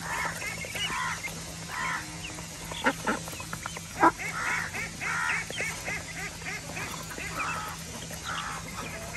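Flock of domestic ducks quacking in short, repeated calls while crowding around feed, with a few sharp knocks among them, the loudest about four seconds in.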